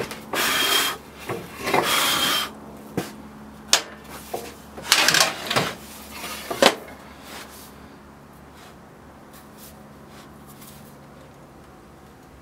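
Metal-on-metal scraping with a faint squeal, and sharp knocks, as the rip fence of an old Sears Craftsman table saw is slid along its rail and locked, and a wood block is pushed across the steel table top. The handling comes in several separate scrapes and knocks over the first seven seconds, then goes quiet.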